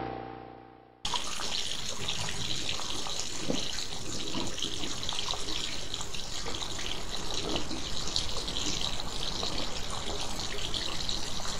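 A steady droning tone fades away in the first second. After a moment of silence, running water starts with a steady hiss and keeps on.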